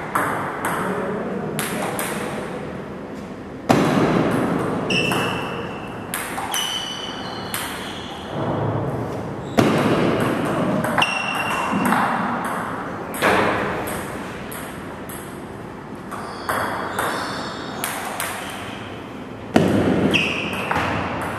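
Table tennis rallies: a celluloid ball clicking off rubber paddles and bouncing on the table in quick series of light, ringing pings, broken by short pauses between points. A few louder thuds stand out.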